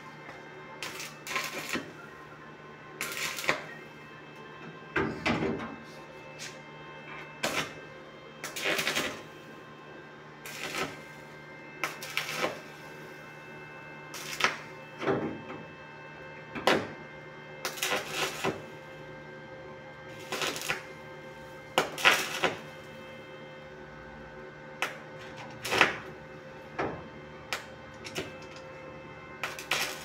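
Stick arc welder crackling in short bursts every second or two as the electrode is struck again and again, tack-welding the steel cabinet of a washing machine. A steady hum runs underneath.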